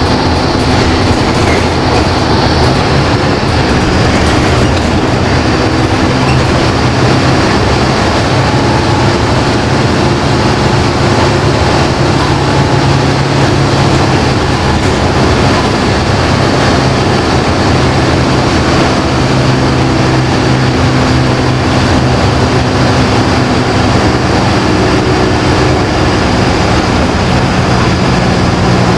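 LiAZ-5292.20 low-floor city bus under way, heard from inside: steady engine drone and road noise, with the engine note shifting in pitch several times as the bus changes speed.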